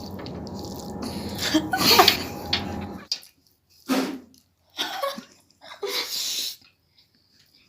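Close-up mouth sounds of eating: wet slurping and smacking in short bursts. A steady background hum cuts off abruptly about three seconds in.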